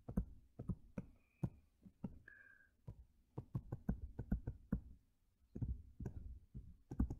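Stylus tapping and clicking on a tablet screen while handwriting, a run of light, irregular taps in quick groups.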